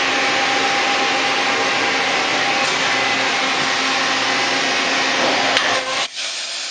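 Mori Seiki MV-65B/50 vertical machining center running: a steady whirring hiss with a steady hum in it, which drops away suddenly about six seconds in.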